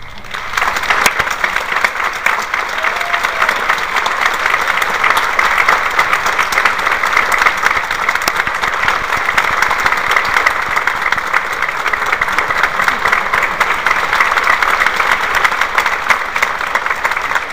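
Audience applauding, a dense, steady clapping that starts at once as the band's final chord dies away.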